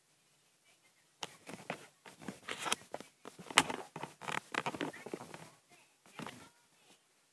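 Close rustling, scraping and knocking from a handheld device being moved and fumbled right at the microphone, a dense irregular cluster lasting about five seconds and stopping near the end.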